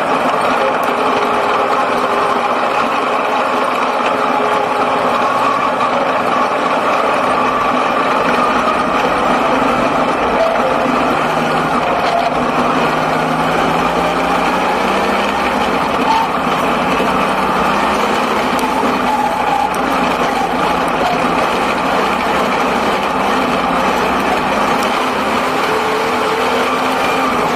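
The six-cylinder engine of a speedway sedan running hard under racing load, heard from inside the cockpit. Its pitch rises and eases as the car is driven around the dirt oval.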